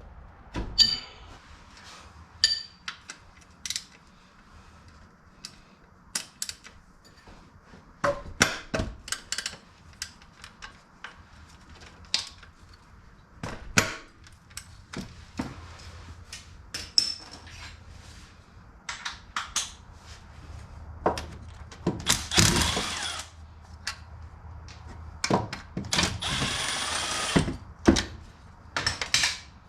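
Hand tools clicking and clanking on metal bolts and brackets in an engine bay as the belt tensioner bracket's 14 mm bolts are worked loose: scattered sharp clicks throughout, with two longer buzzing stretches of a power tool late on, the longer one near the end.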